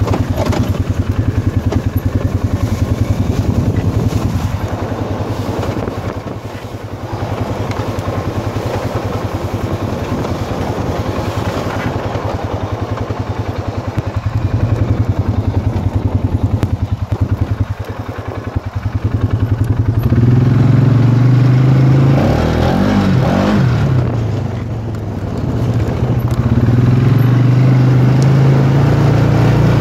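Polaris 570's single-cylinder engine running as the machine is ridden along a trail, at a steady pace at first. About two-thirds of the way in it gets louder and higher as the rider throttles up; the revs waver, ease off briefly, then climb again.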